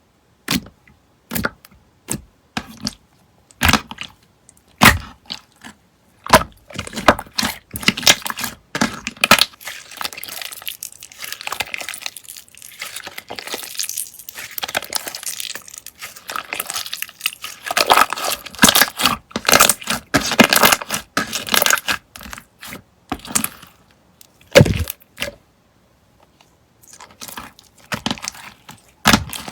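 Slime being squeezed and pressed by hand, giving sharp pops and crackles: single pops at first, then a dense run of crackling through the middle, then spaced pops again near the end.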